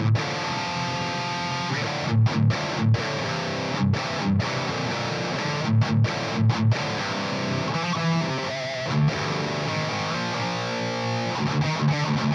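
Distorted electric guitar through a Splawn Quickrod 100, a Solar guitar with Solar pickups tuned to D standard, playing a metal riff: chugging rhythm broken by sudden short stops, then single-note lines from about eight seconds in.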